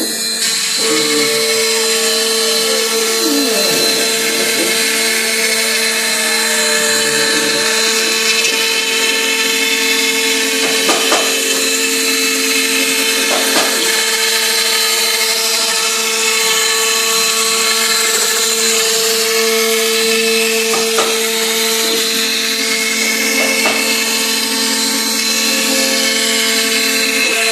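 Large CNC router's spindle running steadily as it cuts MDF board: a constant whine over a hiss of cutting noise. Rising and falling whines from the drive motors come and go as the machine moves, with a few short clicks.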